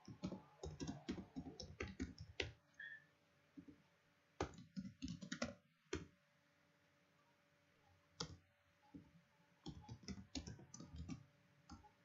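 Typing on a computer keyboard: bursts of rapid key clicks separated by short pauses.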